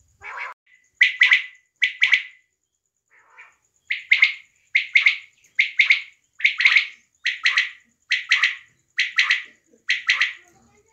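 Female quail calling: a steady series of about a dozen short, sharp double-noted calls, roughly one a second.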